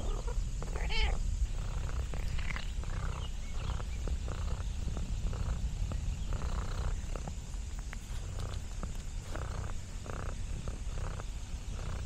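Domestic cat purring steadily, with soft short sounds repeating about twice a second and a brief pitched call about a second in.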